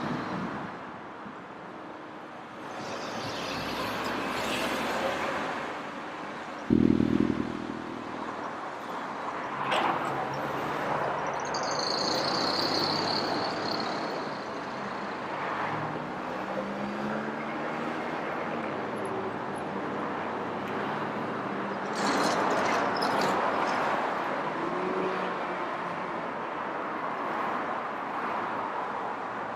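Road traffic: vehicles running and passing, with a short loud pitched blast about seven seconds in.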